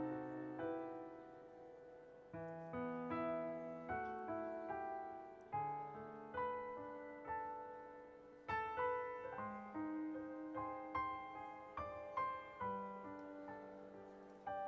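Yamaha CP4 stage piano playing a slow, gentle piece: melody notes over low bass notes and chords, each note fading after it is struck.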